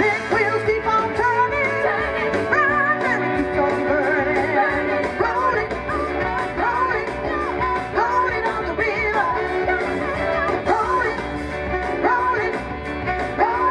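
A woman singing into a microphone over amplified rock-and-roll backing music with a steady drum beat.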